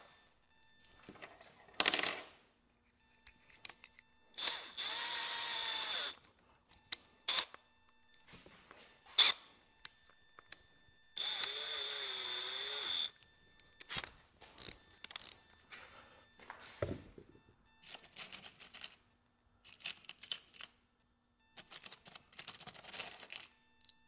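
Cordless drill running in two short bursts of under two seconds each, a steady motor whine with a high tone, while drilling in snap fasteners on a boat's deck edge. Light clicks and taps come between the runs.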